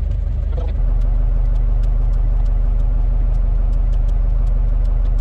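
Diesel engine running steadily at a low pitch, growing louder about a second in and then holding even.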